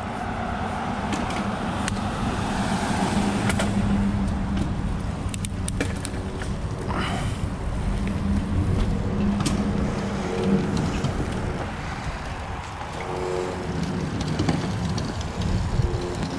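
Rolling rumble of a small fiberglass sailboat's lightweight trailer wheels on asphalt as a bicycle tows it, with scattered clicks and knocks from the hull and gear aboard.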